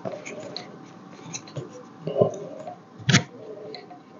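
Handling noise of teleprompter parts being worked by hand: scattered small clicks and taps, a duller knock about two seconds in and one sharp, louder click about three seconds in.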